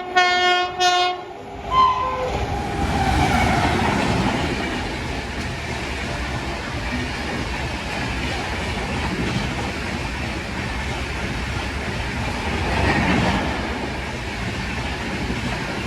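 Indian Railways locomotive horn sounding for about a second, with a short second note just after. Then a train runs past at speed, a steady loud rumble of wheels on the track that swells twice.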